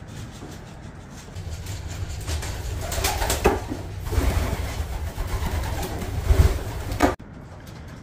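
Racing pigeons cooing, over a low rumble with a few sharp knocks; the sound cuts off suddenly about seven seconds in.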